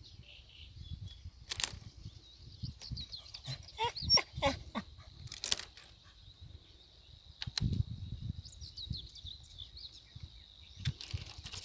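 Outdoor lakeside ambience with a steady high-pitched insect chirring, scattered knocks and rustles of handling, and a few short animal calls about four seconds in.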